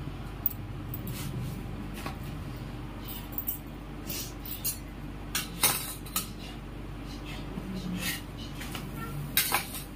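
Cutlery and dishes clinking now and then, as utensils knock against plates during a meal. There are about a dozen short, light clinks, with the loudest a little past halfway and a quick pair near the end.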